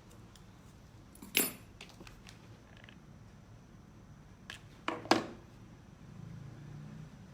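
Sharp clicks and clinks of small craft materials and tools being handled on a worktable while a wire heart is shaped: one about a second in, then a quick cluster of three around five seconds in, the last the loudest.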